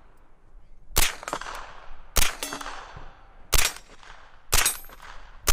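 Century Arms AP5, a 9mm MP5-type pistol, fired semi-automatically in a slow string of single shots, about one a second.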